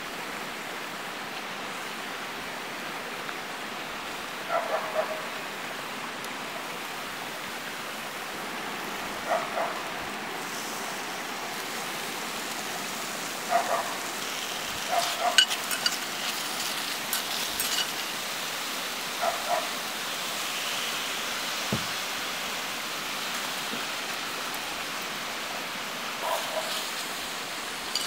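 Scallops sizzling in a cast-iron skillet, a steady hiss that grows a little louder partway through. A dog barks in the distance every few seconds in short double barks, and there are a few light clicks in the middle.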